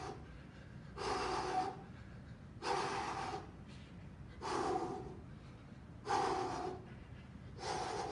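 A man breathing hard from exertion while punching at full speed, one loud, heavy breath about every second and a half.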